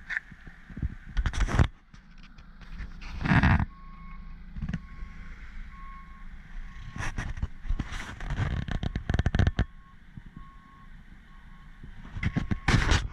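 A reversing alarm beeping steadily, about two short beeps a second, starting about four seconds in. Over it come several loud bursts of rustling and handling noise on the camera microphone.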